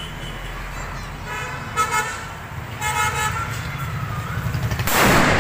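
Street traffic with a vehicle engine running throughout and car horns honking twice in the first half. Near the end comes the loudest sound: a sudden burst as a lit firecracker on the road starts going off.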